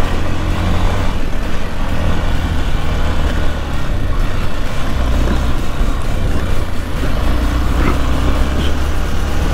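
Motorcycle engine running while under way, a steady loud drone that drops a little in pitch about halfway through.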